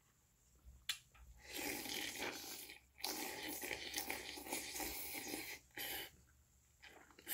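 A man slurping noodles and beef tripe soup off a spoon: two long slurps, then a short one and another near the end.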